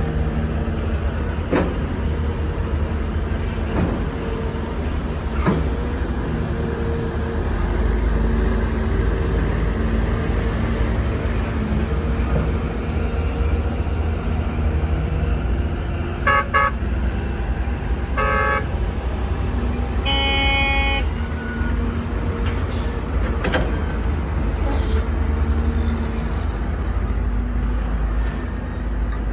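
Kobelco SK250 hydraulic excavator's diesel engine running steadily under load while digging and swinging, with a few clanks in the first few seconds. A little past halfway a vehicle horn gives two short toots, then a longer blast.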